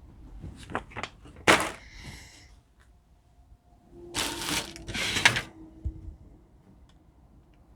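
Light knocks and clicks of parts being handled, then two short bursts of rustling packaging about four and five seconds in.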